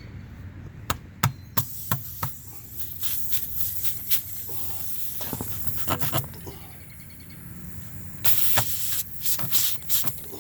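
Tire plug kit's reamer being worked in and out of a tire puncture, rasping against the rubber, with a run of sharp clicks and knocks at the start and a louder stretch of rasping near the end.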